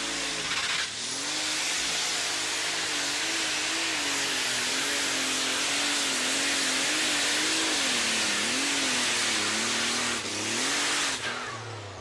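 Super stock pulling tractor's turbocharged diesel engine at full power, dragging a weight-transfer sled, its pitch wavering up and down as the load changes. About a second before the end the engine note drops away as the pull finishes.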